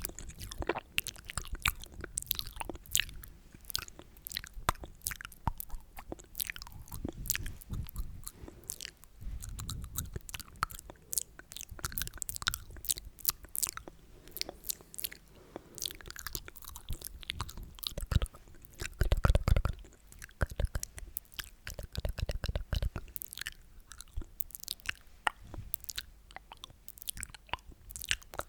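Close-miked ASMR sticky mouth sounds: wet tongue and lip clicks and smacks, dense and irregular, with a louder, deeper stretch a little before two-thirds of the way through.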